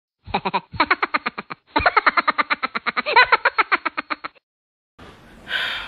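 A comic intro sound effect: a rapid stuttering run of pitched pulses, about ten a second, in three bursts, the last and longest stopping about two-thirds of the way in. A short hiss follows near the end.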